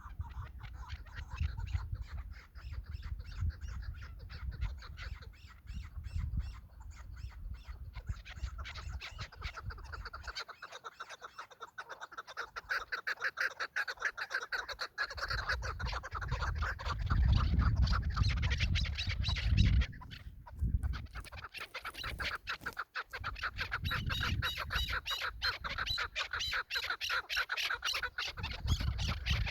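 Chukar partridge calling: a long run of rapid, repeated clucking notes, with a low rumble underneath that comes and goes.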